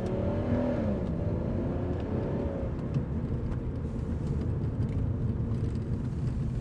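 A 2001 BMW 330Ci's M54 3.0-litre inline-six with an aftermarket cold air intake, heard from inside the car while driving. The engine note climbs briefly, the revs drop about a second in, and it settles into a steady low rumble of engine and road.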